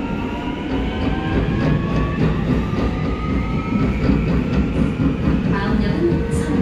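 Seoul Subway Line 2 train pulling out of a station into the tunnel. Its traction motors give a whine that climbs slowly in pitch as it speeds up, over a steady rumble of wheels on rail.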